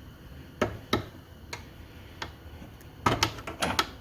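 Sharp metallic clicks and taps of hand tools working the bolt on a motorcycle's rear shock mount. There are two loud clicks about a second in, a few lighter ticks, then a quick run of clicks near the end.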